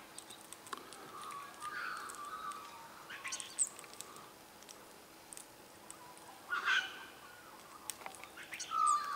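Wild birds calling: several separate calls a few seconds apart, the loudest about six and a half seconds in, with faint chirps and ticks between them.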